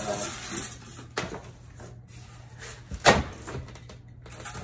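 Cardboard and foam packing being handled and pulled from a shipping box, rustling and scraping, with a small click and then a sharp knock about three seconds in.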